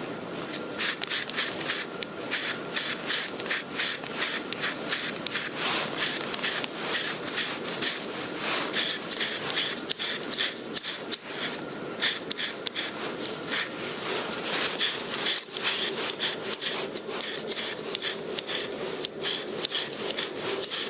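Aerosol can of grey etching primer spraying in many short hissing bursts, roughly two a second, with brief gaps between them.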